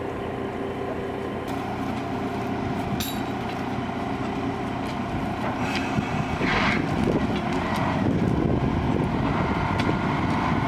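Engine of a railway motor car (track maintenance vehicle) running steadily, growing louder about six seconds in, with a couple of sharp knocks.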